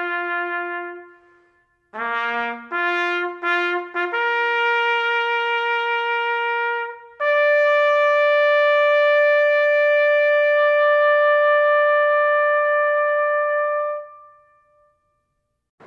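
Solo trumpet playing a slow bugle call: a short quick figure of notes, a held note, then a step up to a long held high note that fades away.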